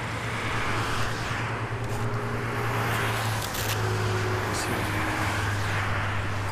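Highway traffic going by: a broad rush of tyres and engines that swells and eases as vehicles pass, over a steady low hum.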